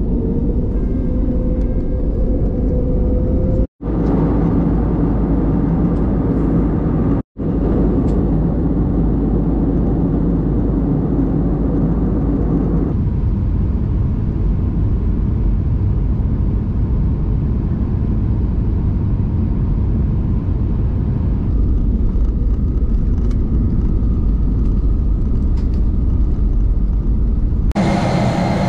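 Jet airliner engine and airflow noise heard inside the passenger cabin: a loud, steady rumble. It cuts out briefly twice in the first eight seconds and shifts in tone a few times. Near the end it turns into a brighter hum.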